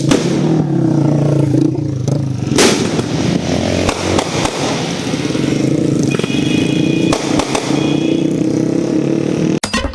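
An engine running steadily, its pitch stepping up and down, with a few scattered sharp bangs of firecrackers, the loudest about two and a half seconds in.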